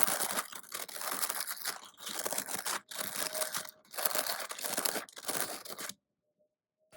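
Bead-filled pink corn squishy toy being squeezed, its beads crunching in four bursts with short breaks between them, stopping about a second before the end.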